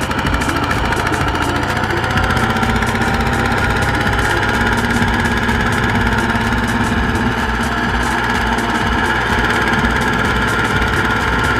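Kubota RT140 walking tractor's single-cylinder diesel engine running steadily with a regular clatter as the tractor sits stuck in mud.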